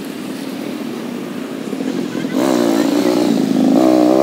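A vehicle engine running, much louder from about two seconds in, its pitch wavering up and down as it revs.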